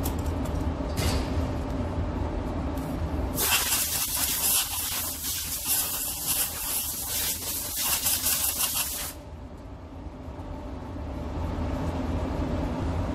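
Compressed-air blow gun hissing in one long blast of about five seconds, after a few brief puffs, as it clears sanding dust off a car body panel before filler goes on. The blast cuts off suddenly, leaving a steady low hum.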